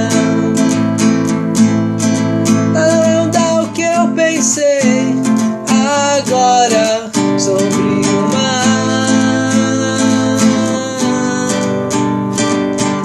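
Band music led by a strummed acoustic guitar playing steady chords, with a melodic line sliding in pitch about four to seven seconds in.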